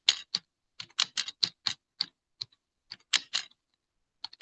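Handwriting: a quick, irregular run of short scratchy writing strokes with brief pauses between words.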